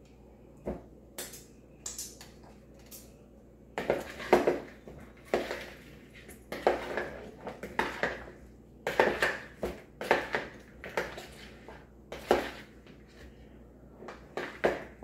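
Tongs clicking and scraping against a mixing bowl as sauce-coated chicken wings are tossed. A few light clicks at first, then from about four seconds in a run of irregular clattering and scraping strokes.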